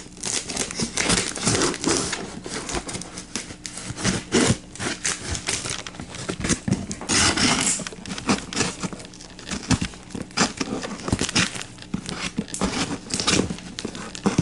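Cardboard shipping box being opened by hand: packing tape tearing and cardboard crinkling and scraping in irregular bursts, with a longer tearing rip about seven seconds in.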